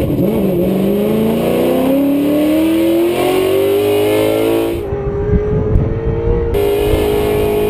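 Ford Mustang drift car's V8 engine revving up under hard acceleration, its pitch climbing steadily for about five seconds as heard inside the caged cabin. Then it holds at high revs while the car slides.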